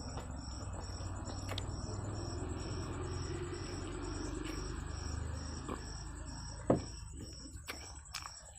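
Close-up eating sounds: a mouthful of egg chow mein being chewed with a low, steady muffled noise. A sharp click comes about six and a half seconds in, followed by a few smaller clicks of mouth sounds near the end.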